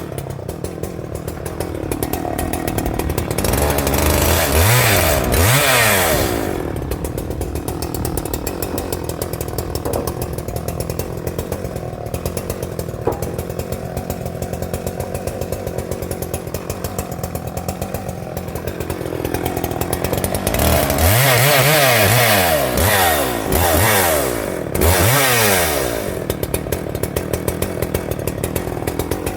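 Husqvarna 394XP big two-stroke chainsaw idling fast and even, revved up twice, a few seconds in and again about two-thirds of the way through, while cutting through small twigs and brush.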